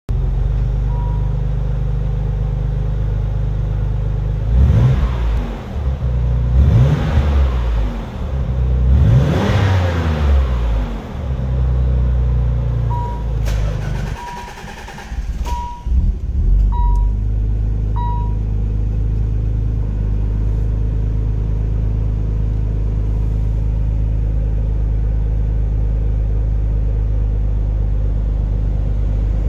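Nissan VG30DETT 3.0 L twin-turbo V6 running, revved three times with its pitch rising and falling. About halfway through, the engine sound drops under a short whirring hiss while a series of short high beeps sounds. It then settles into a steady idle.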